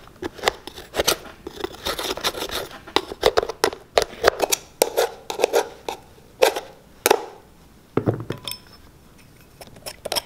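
A metal blade scraping caked, decades-old dried dirt off the rubber sole of a 1930s leather baseball cleat, in quick irregular scrapes and clicks against the metal cleat plate. The scraping eases off later, with a single thump about eight seconds in.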